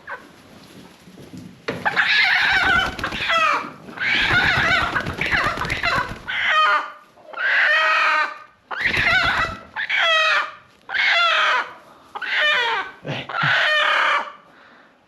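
Chickens squawking loudly over and over, about ten calls in a row starting about two seconds in.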